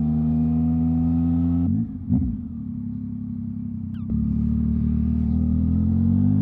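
Yamaha MT-09's three-cylinder engine, run with its silencer removed, heard from on board while riding. It holds a steady note, then the revs drop and waver about two seconds in and it runs quieter off the throttle. From about four seconds in the revs climb steadily as it accelerates again.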